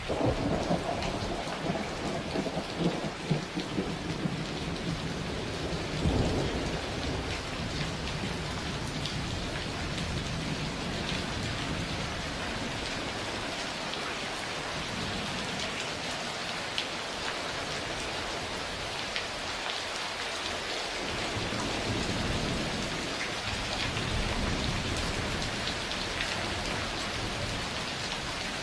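Steady rain with thunder: a clap at the start that rumbles on for several seconds, a sharper crack about six seconds in, and a lower roll of thunder swelling again near the end.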